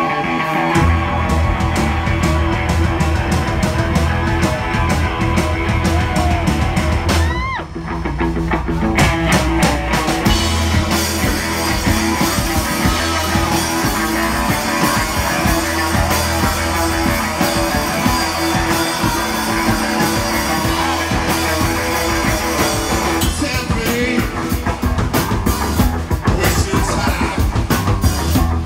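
Live rock band playing an instrumental psychedelic jam on electric guitar, bass guitar and drum kit. There is a brief drop about a third of the way in, and the drumming gets busier near the end.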